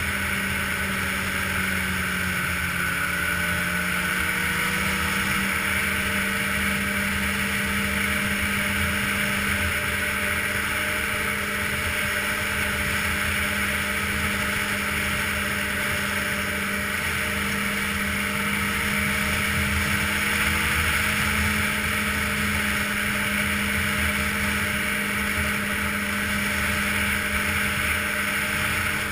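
Ski-Doo touring snowmobile engine running steadily while the sled cruises along the trail, its pitch dipping slightly a few seconds in and again briefly past the middle.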